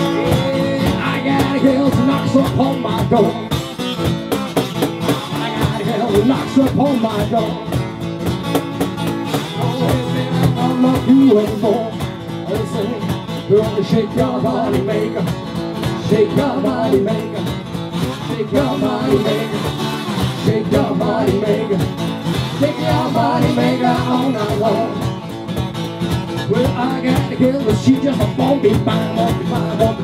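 Live acoustic blues: a steel-string acoustic guitar strummed over a Meinl cajon beat, with a man and a woman singing.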